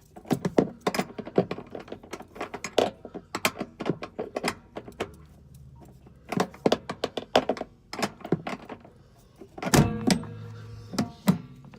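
Metal clicks and clinks of a 1/2-inch wrench working on a toilet floor-mounting bolt, irregular taps with a heavier thump near the end.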